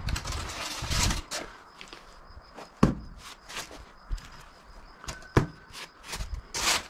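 Footsteps and scattered knocks and scrapes of handling work, with a few sharp clicks. Near the end, a trowel scrapes dabs of adhesive onto a polystyrene insulation board.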